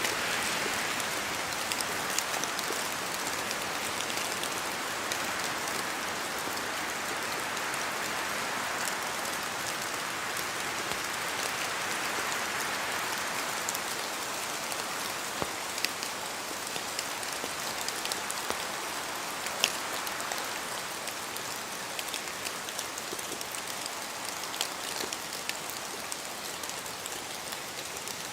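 Steady rain in a forest, falling through the leaves with scattered sharper drips from the trees. The hiss swells and eases slowly, as with gusts of wind.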